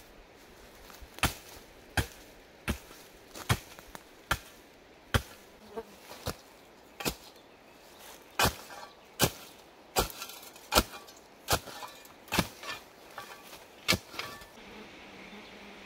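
Axe chopping wood: about eighteen sharp strokes, roughly one every 0.8 seconds, with a short break about halfway through.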